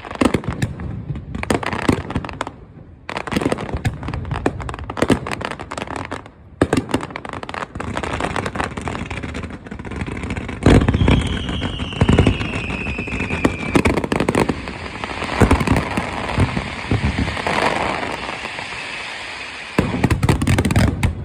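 Fireworks display: a rapid, irregular string of booms and crackling bursts, with a whistle falling in pitch for a few seconds about halfway through.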